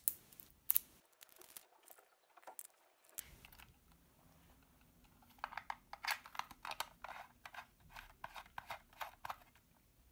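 Metal telescopic antenna being fitted into the top of a plastic toy RC transmitter and pulled out: a few sharp clicks at first, then a quick run of small clicks and scrapes over the second half.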